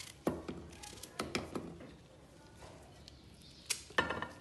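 Knife cutting a zucchini into small pieces: irregular sharp cutting knocks, a quick run in the first second and a half and two louder ones near the end.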